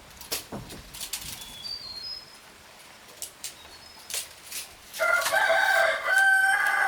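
A rooster crowing once, loud and about two seconds long, starting about five seconds in. Before it, scattered sharp knocks and a few brief high bird chirps.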